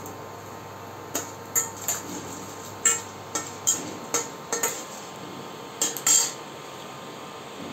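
Slotted stainless-steel spatula clinking and scraping against a stainless-steel kadai as mustard seeds and urad dal are stirred in hot oil: a dozen or so sharp metal knocks between about one and six seconds in.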